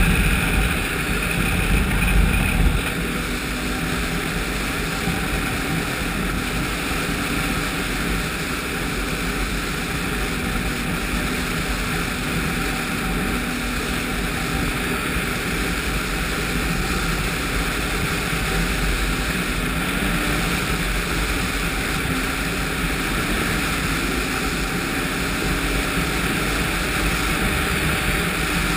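Ski-Doo 1200 4-TEC snowmobile's three-cylinder four-stroke engine running steadily at speed, mixed with wind rushing over a helmet-mounted microphone. A little louder in the first few seconds.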